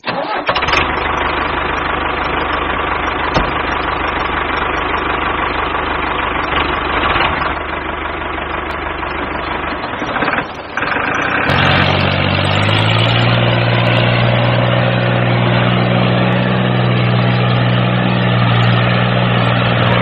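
Tractor engine running. About ten seconds in it breaks off briefly and comes back as a steadier, lower drone, like an engine idling.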